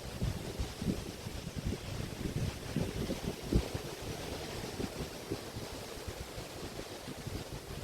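Waves washing onto a beach on the Río de la Plata estuary, a steady rush of water, with wind buffeting the microphone in irregular low gusts.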